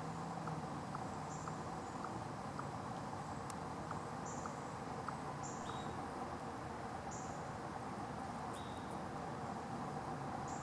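Eastern chipmunk chirping: short, high-pitched chips at irregular intervals, a few seconds apart at most, over a steady outdoor background hiss.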